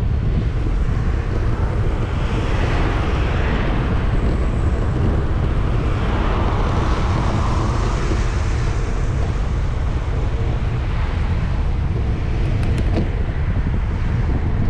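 Wind buffeting the microphone of a camera on a moving bicycle, a steady low rumble, with the rush of a passing car's tyres swelling and fading in the middle.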